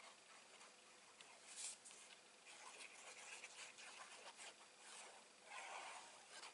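Faint scratching and rubbing of card stock being handled and pressed, in short bursts with a slightly louder scrape about a second and a half in and another near the end.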